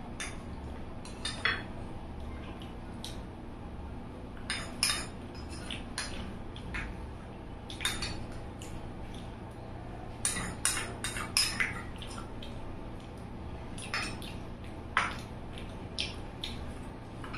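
Eating sounds: small irregular clicks and clinks against a plate. They come in clusters about five seconds and eleven seconds in.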